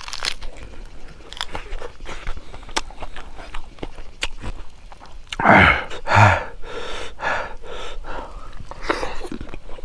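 Close-miked chewing and smacking of pork leg and rice, with many small wet mouth clicks. A little past halfway come two loud breathy vocal sounds in quick succession, then a shorter, fainter voiced sound.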